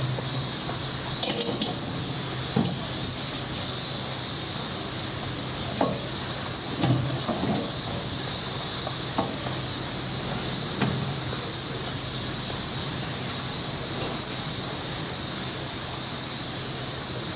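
A chained stainless-steel ball feeder clanking, its chain rattling, as a brown bear paws, mouths and rolls it for the treat inside: a handful of scattered metallic knocks and clatters over a steady high hiss.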